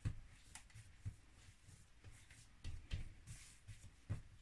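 Hands kneading and squeezing a ball of shortcrust tart dough against a countertop: faint, irregular soft thuds with light rubbing.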